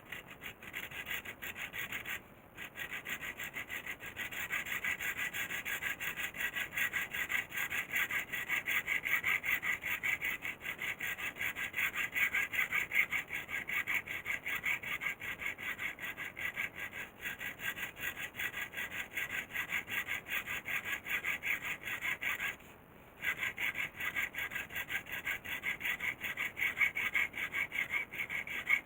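Hand sawing: a steady, rapid back-and-forth run of saw strokes, pausing briefly about two seconds in and again about three-quarters of the way through.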